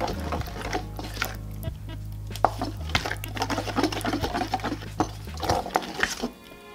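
A utensil stirring a thick, starchy marinade in a glass mixing bowl, with quick irregular clinks and wet scrapes against the glass. It stops shortly before the end, where music comes in.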